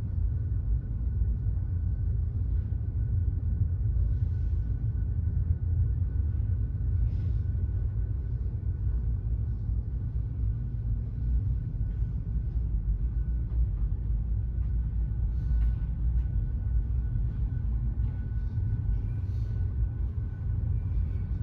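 Steady low rumble on board a ferry, with a faint steady high whine and a few faint light knocks and clinks.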